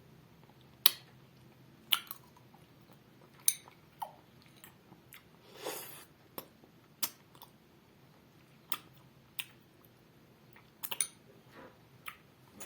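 Close-miked eating: a person biting and chewing a sweet food. It is heard as scattered sharp, crisp clicks and smacks, roughly one a second, with a softer rustle about halfway.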